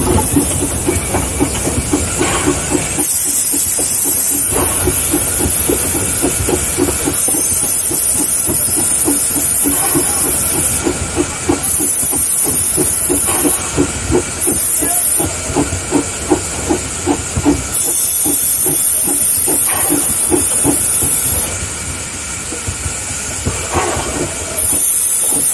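Mason Bogie 0-6-4T steam tank locomotive running, heard from inside its cab: an even rhythm of exhaust beats, with a high steam hiss that cuts in and out several times.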